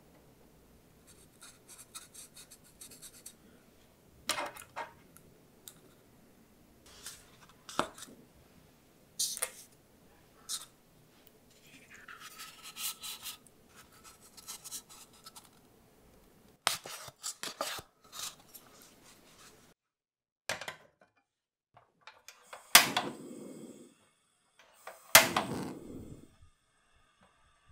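Close kitchen handling sounds: paper cups moved and scraped, and liquid poured from a paper cup into a pot. Near the end a gas stove burner is clicked on twice, each loud click followed by a brief rush as the flame catches.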